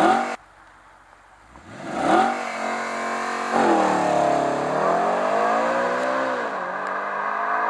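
Audi RS5's 4.2-litre V8 through its sport exhaust during a launch-control standing start. A brief rev cuts off abruptly at the start. About two seconds in the engine comes up hard as the car pulls away, its note climbing and dropping at quick dual-clutch upshifts about three and a half and six and a half seconds in.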